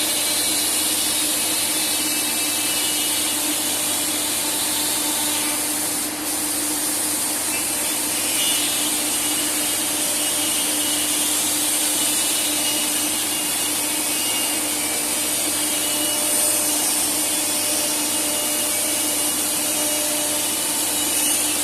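CNC wood router with automatic tool change running steadily, a constant machine hum under a high hiss, with a brief dip about six seconds in.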